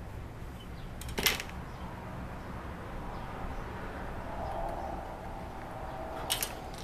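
Small hand tools handled on a workbench while marking a drill point on a metal jig plate: two short, sharp scratching clicks, the first about a second in and the louder of the two, the second near the end. A low steady hum runs underneath.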